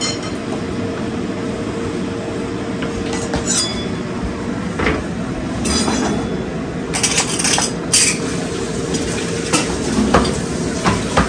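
Kitchen clatter: scattered clinks and knocks of dishes and utensils over a steady background hum.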